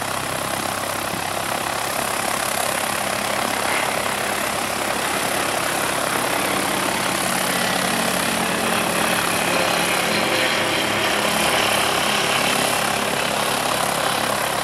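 Cessna 152's Lycoming O-235 four-cylinder engine and propeller running at low taxi power. The engine grows slightly louder as the plane taxis close by and eases off near the end.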